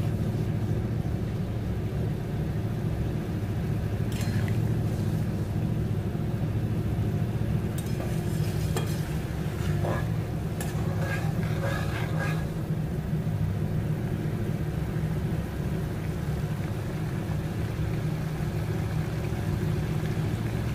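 Spiced curry gravy bubbling in a kadai as it comes to the boil, over a steady low hum. A cluster of sharper pops and clicks comes around the middle.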